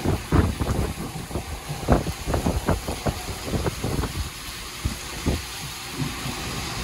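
Heavy rain falling on wet pavement, a steady hiss, with irregular close taps and thuds that come thick for about the first four seconds and then thin out.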